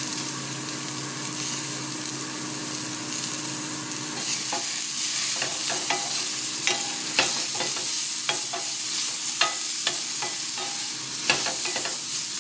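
Sliced peppers and carrots sizzling in olive oil in a frying pan, a steady hiss. From about four seconds in, a utensil taps and scrapes against the pan at irregular intervals as the vegetables are stirred.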